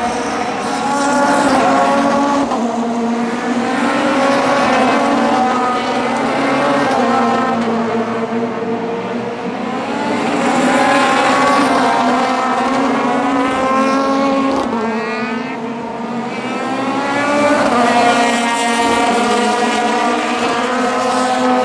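Several sports-prototype race cars (CN class) running at racing speed, their overlapping engine notes rising and falling in pitch as they pass, with the level swelling and fading with each pass.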